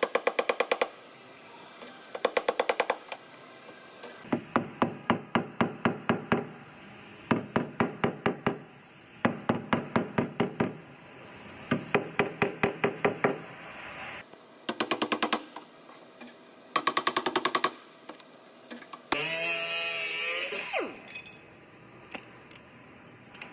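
Body-shop work on a quarter panel: a series of short bursts of rapid metallic clicking, each about a second long, then a power tool running for about two seconds and winding down in pitch as it stops.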